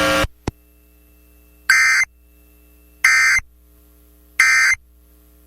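A steady electronic tone cuts off just after the start, then a click, then three short identical bursts of warbling digital data tones about 1.3 s apart. These are the NOAA Weather Radio SAME end-of-message bursts that close an emergency alert broadcast.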